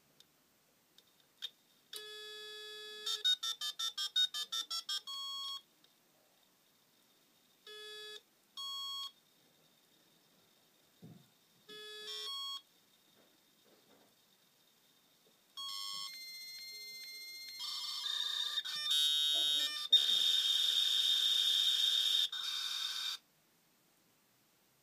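Fax modem of a Lexmark X9575 all-in-one heard through its line speaker while placing a fax call. A brief dial tone gives way to a quick run of about eleven touch-tone dialing beeps, then spaced ringing tones and short calling beeps every few seconds. About sixteen seconds in, the far fax answers with a steady high tone, followed by about five seconds of warbling modem handshake noise that cuts off suddenly.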